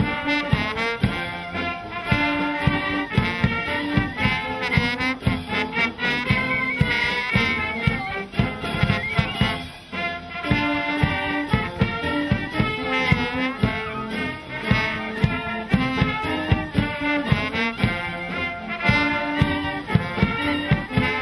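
Brass band playing a march-like tune: trumpets, trombones and clarinets over a steady bass-drum beat.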